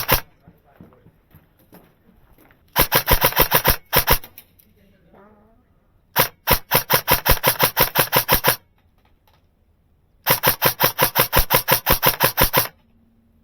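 Airsoft gun firing on full auto: three bursts of rapid, evenly spaced shots, each one to two and a half seconds long, with short pauses between.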